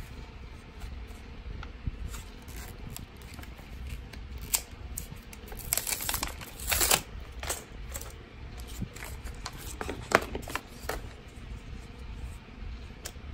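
Plastic blister packaging being opened by hand: scattered clicks and crackles, with a longer crinkling tear about six seconds in and a sharp snap about ten seconds in.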